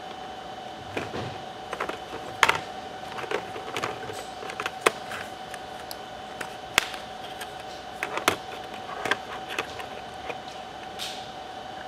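Irregular sharp clicks and taps of the Toughbook CF-50 laptop's case and parts being handled during hard drive removal, over a steady faint hum.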